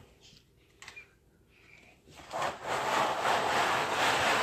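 Plastic laundry basket with a small dog in it being dragged across a hard floor: a steady scraping rub that starts about two seconds in, after a near-silent spell.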